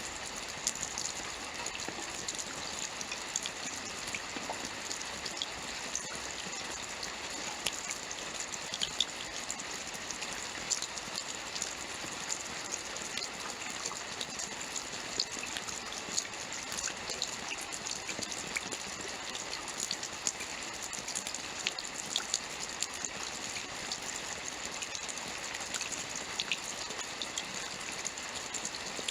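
Steady rainfall: an even hiss with many small drop ticks scattered through it.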